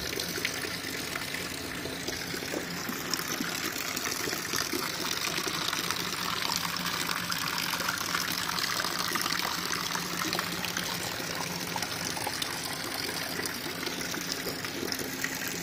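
Steady rain falling, a dense patter of drops spattering on a wet concrete courtyard.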